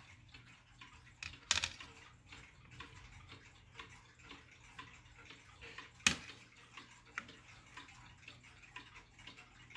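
Jauch triple chime wall clock's movement ticking faintly and evenly, about two ticks a second, with two sharper clicks about one and a half and six seconds in.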